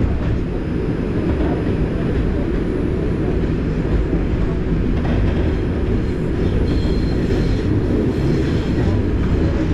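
New York City subway 5 train running express at speed, heard from inside the car: a steady low rumble of wheels on rail, with a faint thin wheel squeal about two-thirds of the way through.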